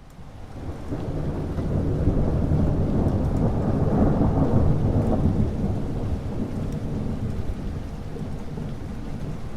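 Thunderstorm: a long rolling rumble of thunder that builds over the first couple of seconds, is loudest about halfway through and then slowly dies away, over steady rain.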